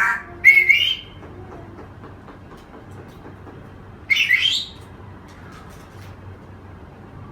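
African grey parrot calling: short rising whistle-like calls near the start and a harsher rising call about four seconds in.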